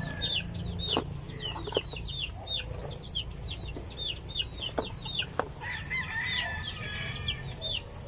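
Chickens calling: a quick run of short, high chirps, about three or four a second, with a louder call about halfway through. A few light clicks of eggs being set into a paper-pulp egg tray.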